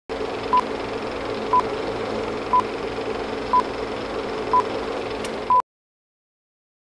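Film-leader countdown: a short high beep with a click once a second, six in all, over a steady hiss and hum. It cuts off suddenly right after the last beep.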